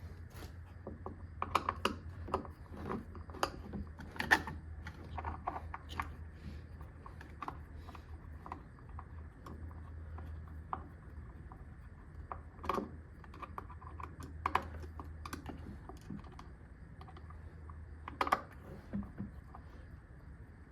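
Irregular clicks and light knocks of a portable washing machine's wash plate and nearby parts being handled and turned over during a teardown, over a steady low hum.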